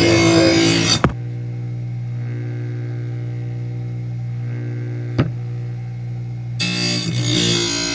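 Magna-Matic blade sharpener's motor running with a steady hum while a mower blade grinds against the wheel with a harsh rushing noise. The grinding stops with a click about a second in, leaving only the motor hum, a sharp click comes about five seconds in, and grinding starts again near the end.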